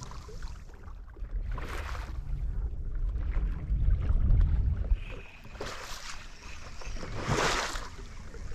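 Wind rumbling on the microphone over water lapping against a fishing boat, with a few short hissing washes of water.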